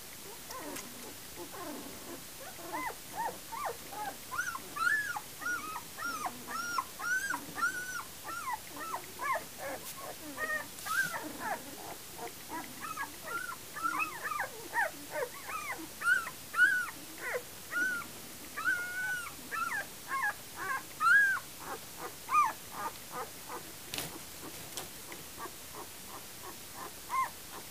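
Ten-day-old puppies squeaking and whimpering: many short, high squeals, several a second, each rising and falling in pitch, from more than one pup.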